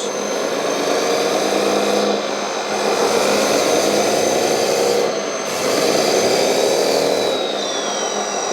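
1/14-scale RC hydraulic bulldozer driving forward with its blade down: steady grinding and rattling of the metal tracks and drive motors, with a high motor whine that drops in pitch near the end.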